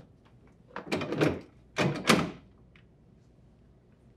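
Plastic freezer basket of an LG refrigerator being set into its pulled-out drawer frame, knocking and scraping in two short clusters about one and two seconds in, with a light click after.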